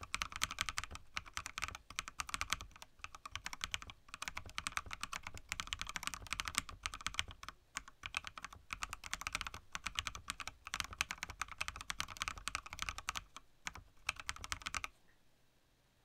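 Fast touch-typing, about 103 words per minute, on a mechanical keyboard with pre-lubed LeoBog V4 linear switches and flat 3D-printed keycaps: a dense, uneven patter of key clacks that stops about a second before the end.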